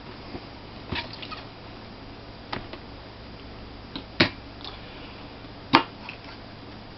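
Light clicks and taps as a laptop hard drive in its metal case is handled, about four sharp knocks spread a second or two apart.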